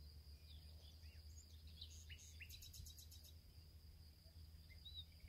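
Faint outdoor ambience: small birds chirping in short scattered notes, with a quick trill about halfway through, over a steady high thin tone and a low hum.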